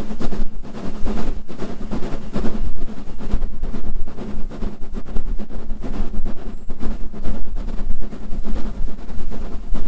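Southern Railway S15 class 4-6-0 steam locomotive 506 working hard up a steep gradient, its two-cylinder exhaust beating continuously over the rumble and clatter of the train on the rails, heard from the leading carriage.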